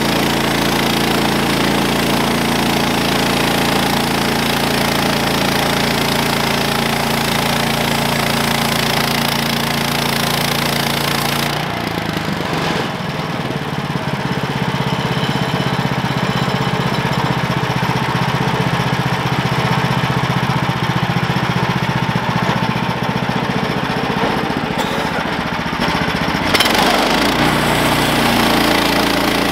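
Gasoline engine of a portable bandsaw sawmill running steadily under load as the blade cuts through an oak log. About twelve seconds in the sound changes, the hiss dropping away and a lower hum taking over, and the first fuller sound returns near the end.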